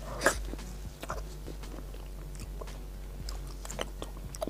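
A person biting into a large matcha-and-cream snow mochi (xuemeiniang), with a sharp bite about a third of a second in, then chewing it with scattered small mouth clicks.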